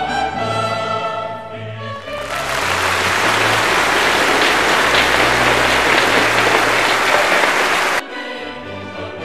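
Orchestral background music with a choir. From about two seconds in, loud applause over the music that cuts off suddenly about eight seconds in.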